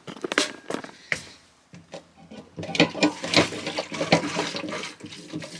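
Whale Gusher manual foot pump being worked to prime the fresh-water line. A few clicks and knocks come first, then a run of quick pump strokes with water gurgling through the plumbing.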